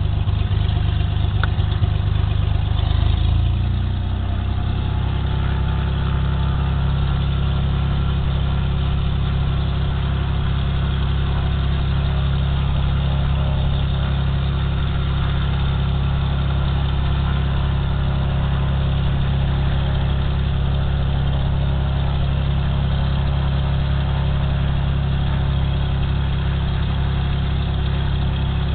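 Cessna 206 Super Skylane's six-cylinder piston engine and propeller running, heard from inside the cockpit. The engine note shifts about four seconds in, then holds steady.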